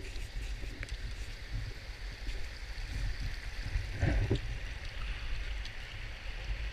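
Shallow mountain stream rushing over rocks, close up, with wind rumbling on the microphone. A brief louder burst comes about four seconds in.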